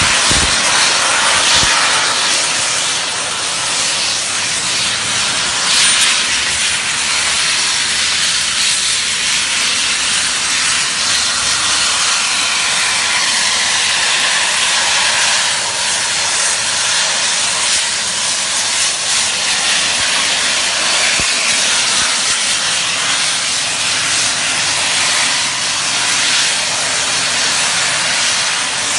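Small jet turbines of a flying jet suit running steadily: a loud, even rushing hiss.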